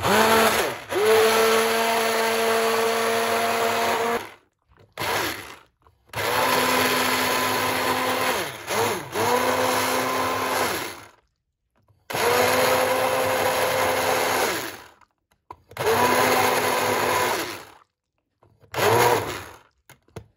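Electric immersion (stick) blender puréeing lentil and pumpkin soup in a saucepan, run in about six bursts of a few seconds each with short pauses between. At each start the motor's whine rises in pitch as it spins up, then holds steady.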